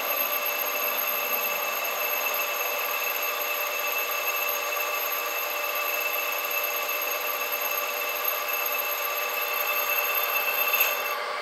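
Monarch engine lathe running while a threading tool cuts the stainless steel seal ring of an impeller. The sound is a steady high-pitched ringing whine made of several constant tones, and it cuts off near the end.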